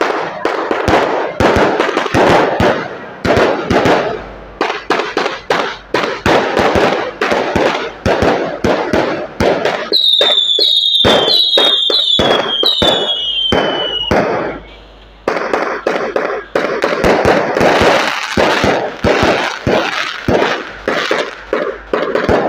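Aerial fireworks going off overhead in rapid volleys of sharp bangs and crackles. About ten seconds in come several short falling whistles, then a brief lull before the crackling volleys resume.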